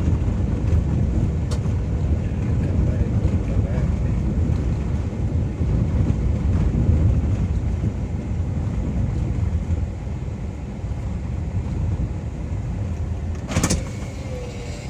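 Steady low rumble of a moving motor vehicle, easing off a little near the end, with one sharp knock shortly before the end.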